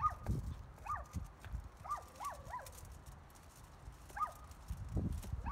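A dog whining: short high whimpers that rise and fall in pitch, coming singly or two or three close together, over low rustling and knocking.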